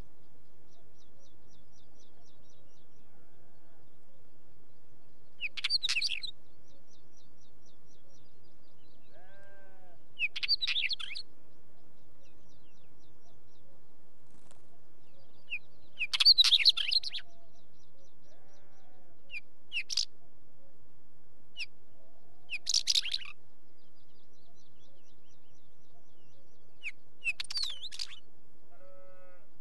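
Northern wheatear singing: about six short bursts of quick, high notes, each under about a second and a few seconds apart.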